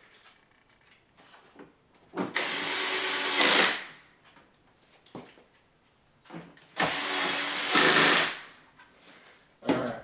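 Cordless drill-driver running in two bursts of about a second and a half each, driving screws at a low clutch setting. A short knock comes near the end.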